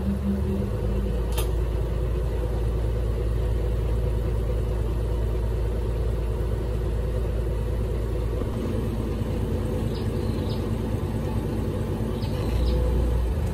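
Small riverboat engine running steadily at low revs: a continuous low rumble with a steady hum. A few faint short high chirps sound near the end.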